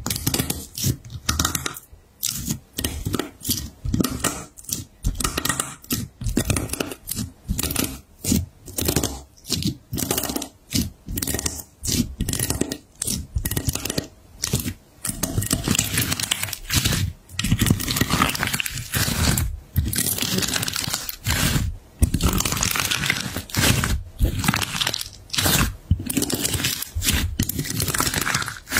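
Fingers pressing and kneading rainbow slime with a hardened, shattered crust, the shards crunching and crackling with sticky tearing underneath. The crackles come in quick separate bursts at first and run almost without a break in the second half.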